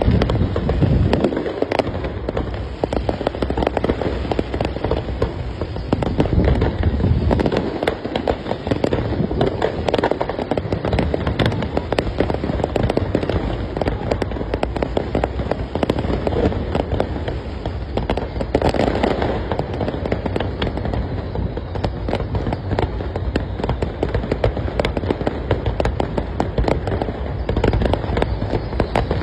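Aerial fireworks display: a dense, unbroken run of bangs and crackles, with heavier booms every few seconds.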